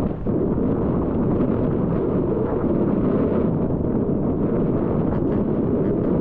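Wind buffeting the microphone on an open chairlift, a steady loud rumble.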